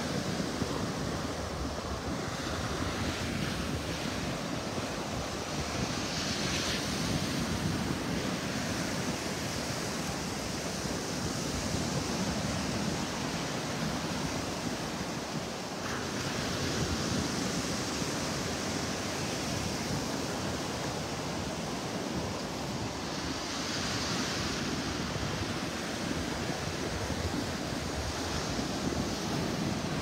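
Atlantic surf breaking and washing up a sandy beach, a steady rushing wash that swells every several seconds as each wave runs up the shore.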